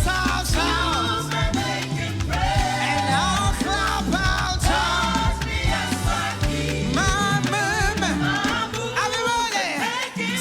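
Live gospel praise music: a band with bass and drums plays while a group of singers sing the melody together.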